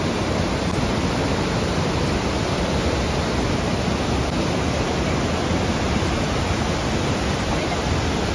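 Fast mountain stream rushing over boulders and rocks: a steady, unbroken rush of white water.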